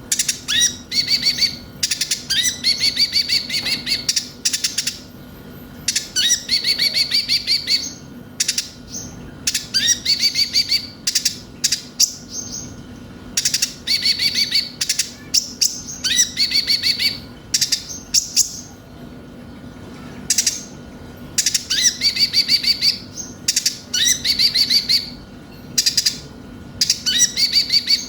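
Kolibri ninja (konin) sunbird singing: repeated bouts, each about a second long, of rapid high trilled notes, separated by short sharp chips, over a faint steady hum.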